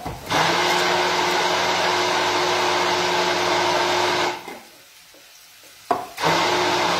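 Hand-held immersion blender running, puréeing squash blossoms with oil, cheese and pasta water into a sauce. It runs steadily for about four seconds, stops for over a second, then starts again after a click near the end.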